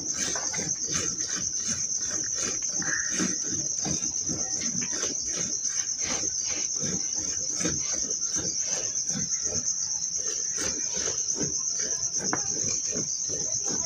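A cow being milked by hand into a steel milk can: milk squirts hitting the metal can in a steady rhythm of about two to three a second. A constant high-pitched insect chirring runs underneath and is the loudest sound.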